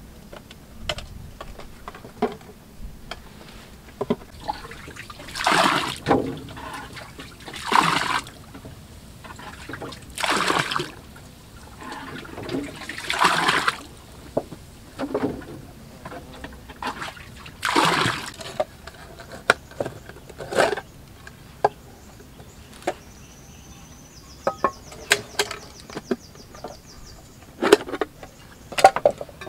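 Water being bailed out of a wooden boat with a plastic bowl: about five splashes of scooped water thrown out, a few seconds apart. Later come scattered light clicks and knocks, including metal clinks from a mess tin being handled.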